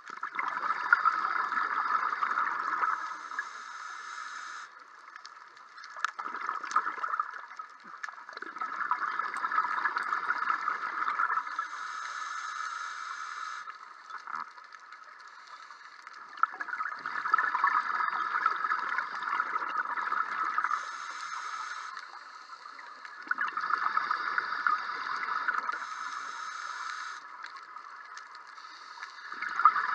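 Scuba diver's exhaled bubbles bubbling from the regulator, heard underwater. They come in bursts of about three seconds every five to seven seconds, with quieter stretches between as the diver breathes in.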